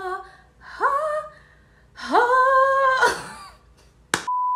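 A woman sings or hums a few short wordless phrases with sliding pitch; the longest note is held for about a second. Near the end a click is followed by a steady, high, single-pitch beep that starts suddenly.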